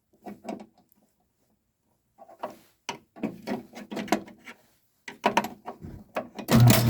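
A run of light knocks, clicks and rattles, as of metal parts being handled on a garage door opener. About six and a half seconds in, a loud steady electric motor hum starts.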